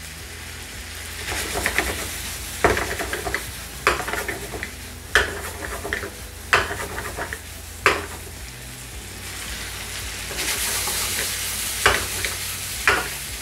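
Cooked vegetable and chana dal mixture sizzling in a nonstick frying pan over a high gas flame while being stirred, with sharp knocks of a utensil against the pan every second or so; the sizzle swells about ten seconds in. The last of the moisture is being dried off.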